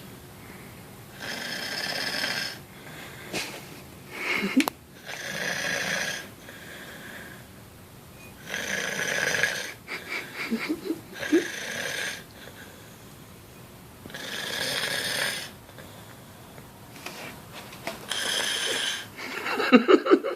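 A woman snoring loudly in her sleep: a long rasping snore on each breath, about every three to four seconds, with quieter breathing in between.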